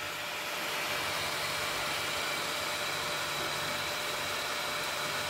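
Anycubic Kobra 3 3D printer running with a steady whir during its auto-level routine, around the nozzle-wiping stage.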